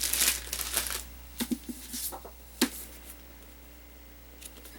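Paper rustling as a book is handled and opened, followed by a few light taps and knocks of the book being moved about.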